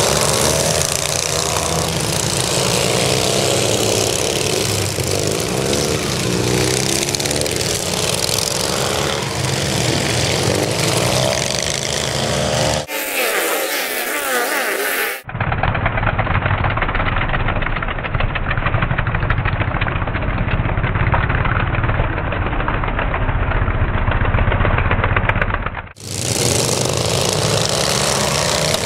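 Several racing riding lawn mowers' small gasoline engines running together, revving up and down as they race around the track.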